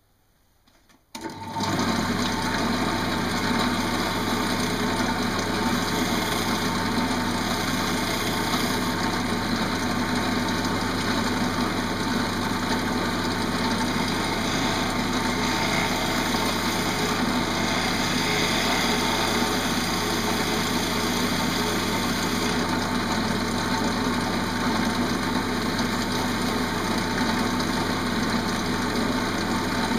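Wood lathe starting up about a second in, then running steadily with a constant motor hum, while a bowl gouge cuts into the inside of a green pear-wood bowl, adding a rough scraping noise.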